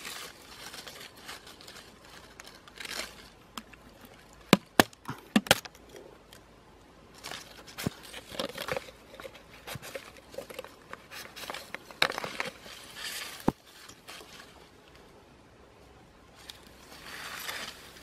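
Dry grass rustling and crackling as a small PVC-pipe trap is handled, with a cluster of sharp clicks about four to five seconds in and single clicks later on. Near the end, the rustle of someone walking off through tall dry grass.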